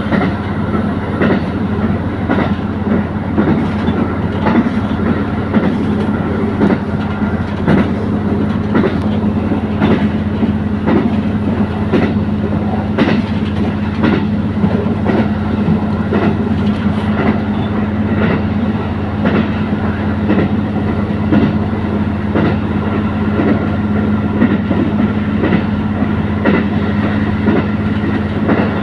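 Diesel train running steadily along the track: a constant engine drone, with the wheels clicking over rail joints again and again at uneven spacing.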